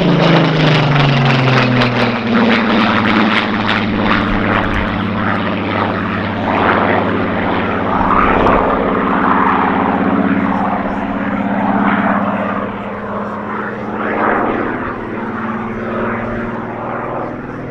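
Supermarine Spitfire's piston engine and propeller during a low pass, the engine note dropping in pitch in the first couple of seconds as it goes by, then a steady drone that slowly fades as the fighter climbs away.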